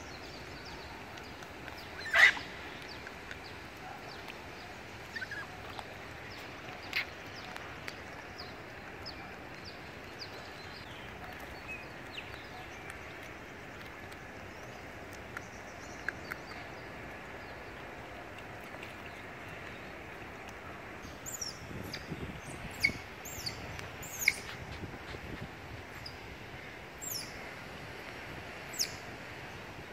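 Smooth-coated otters chirping: short, high-pitched calls that fall quickly in pitch. There is one loud call about two seconds in, then a few scattered ones, and the calls come thick and fast in the last third.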